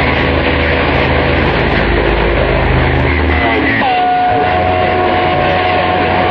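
Guitar music played over a CB radio channel, heard through heavy static with a hissy, narrow sound. About four seconds in, a whistling tone slides down in pitch and then holds steady over the noise.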